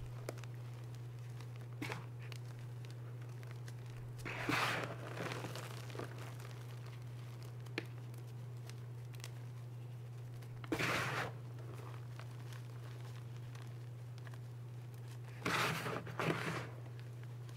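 Crumbled reformed gym chalk crunching and grating as hands dig into it, lift it and squeeze it. The crunches come in four short bursts, the last a quick double, over a steady low hum.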